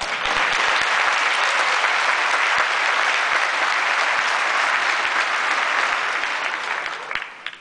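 A large audience applauding; the clapping starts at once and dies away about seven seconds in.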